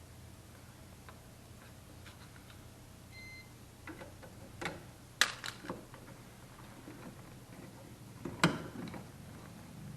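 Scattered sharp knocks and clicks over a low steady hum, the loudest about five seconds in and again past eight seconds, with a brief high beep about three seconds in.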